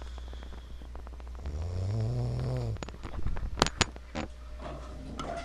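A man snoring in his sleep after a night of heavy drinking: one long droning snore that rises then falls in pitch about a second and a half in. It is followed by a few sharp clicks, the loudest of them about three and a half seconds in.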